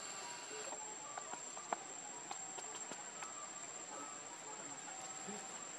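Steady high-pitched insect trill, with faint scattered clicks and a sharper tick a little under two seconds in.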